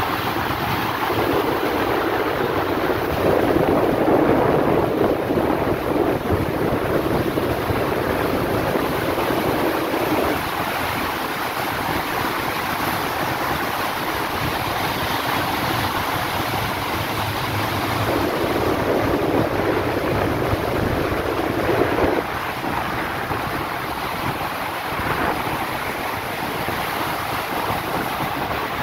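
A ship's churning stern wake rushing and hissing as foaming water boils up behind the hull, with wind buffeting the microphone in stretches.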